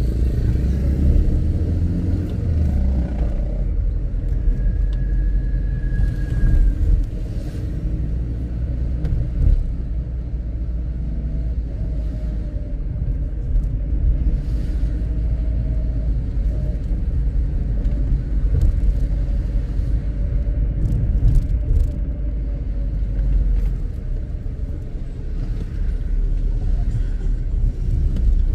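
A car driving slowly along a city street, with a steady low rumble of engine and road noise.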